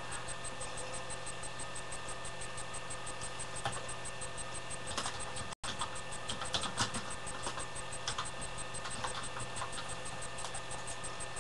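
Room tone: a low steady hiss with a faint electrical hum, broken by a few faint scattered clicks. The sound cuts out for an instant about halfway through.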